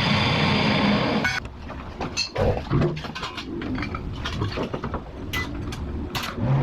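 A loud rushing power-tool noise stops abruptly about a second in. Then come scattered metallic clinks, taps and knocks as steel parts are handled and fitted on the pickup bed.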